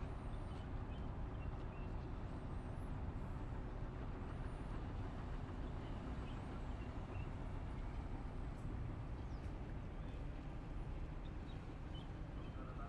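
Steady low engine rumble of a boat running, mixed with open-air wind and water noise, with a few faint high chirps.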